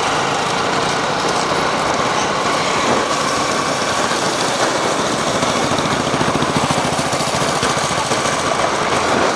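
A small engine running steadily close by, its rapid pulses over a loud rushing noise.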